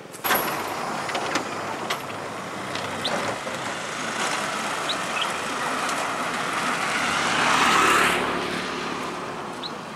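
A motorised two-wheeler approaching and passing close by on the road. Its engine and tyre noise builds over several seconds to a peak about eight seconds in, then fades.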